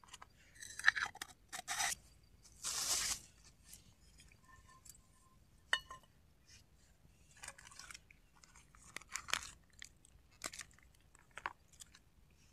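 Close handling noise of camp cooking gear: a run of crunches and scrapes, with a longer rasping scrape about three seconds in, then scattered sharp clicks and crackles from a small twig fire under a frying pan.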